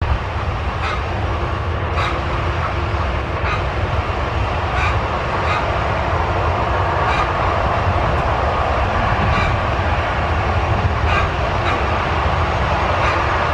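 Distant Boeing 737-200 on landing approach: steady engine noise from its Pratt & Whitney JT8D low-bypass turbofans, growing slightly louder as it nears. Faint ticks come now and then.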